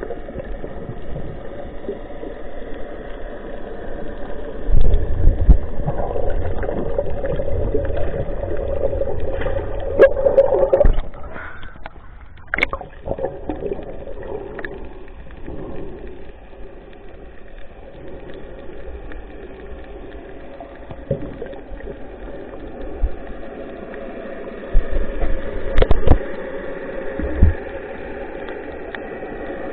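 Muffled water sloshing and gurgling, with a steady hum underneath and loud low thumps about five seconds in and again near the end.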